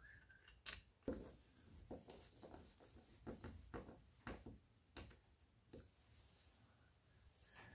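Near silence broken by a string of faint, irregular taps and clicks, clustered from about a second in to about six seconds, then quiet room tone.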